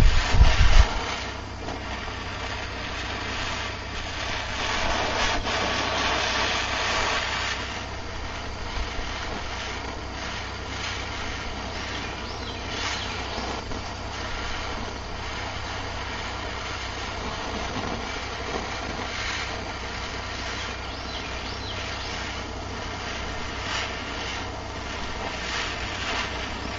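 Handheld gas torch flame hissing steadily against the spine of a forged steel knife blade, heating it to draw a differential temper. A few low thumps in the first second, and the hiss swells for a few seconds a little after that.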